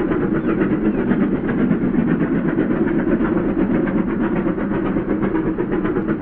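Steam train running along the track: a steady, dense clatter of wheels and engine that keeps the same level throughout.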